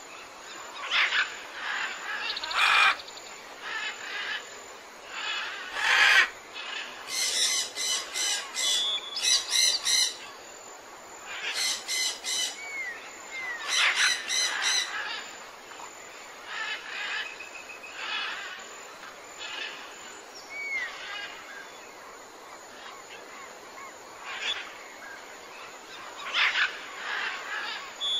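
Forest birdsong: several birds chirping and calling, with a burst of rapid chattering calls a few seconds in and sparser chirps later.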